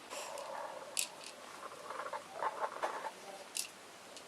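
Small rattling and scratching of BBs being loaded into an airsoft pistol magazine, with a few sharp clicks about a second in and again near the end.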